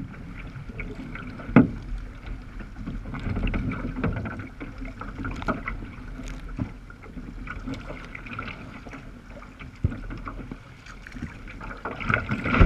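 Choppy sea water sloshing and slapping against the bow of a sea kayak as it is paddled along, close to the deck, with a few sharp splashes, the loudest about a second and a half in and more near the end.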